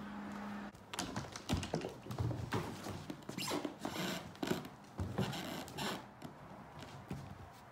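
Cat paws scampering, landing and pouncing on a hardwood floor during play with a wand toy: a run of irregular light taps and soft thumps that dies down near the end.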